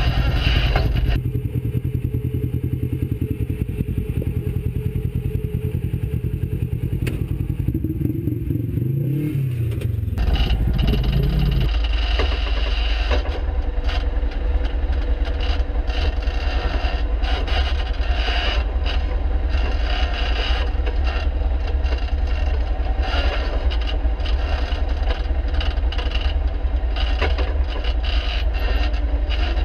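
An off-road side-by-side's engine running low and steady, its pitch rising about nine seconds in. After that, a rough rattling noise with clatter and scraping takes over as the vehicle works over rock.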